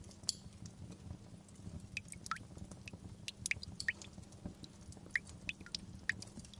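Log fire crackling: irregular sharp pops and snaps over a steady low rumble, with the pops coming thicker after about two seconds.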